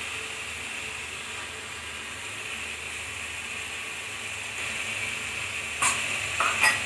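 Onion paste frying in mustard oil in an aluminium pressure cooker, a steady sizzle, with a few sharp knocks of the wooden spatula against the pot near the end.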